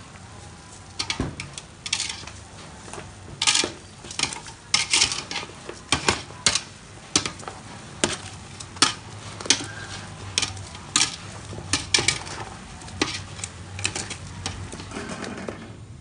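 A metal ladle stirring pork bones in a stainless steel stockpot, clinking and knocking against the pot in irregular strokes, about one or two a second.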